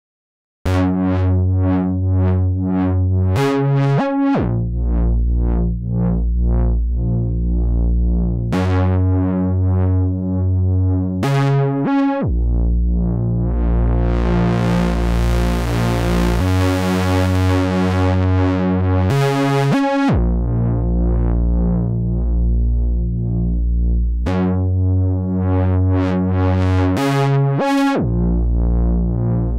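Behringer Model D, a Minimoog-style analog monosynth, playing a repeating bass pattern of short notes that starts just under a second in. As the filter cutoff and emphasis knobs are turned, the tone opens up much brighter and buzzier around the middle, then closes back to a rounder sound.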